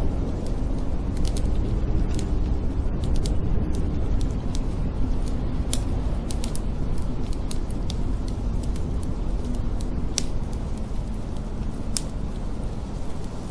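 Wood fire crackling in a fireplace, with scattered sharp pops, over a steady low rumble of storm wind.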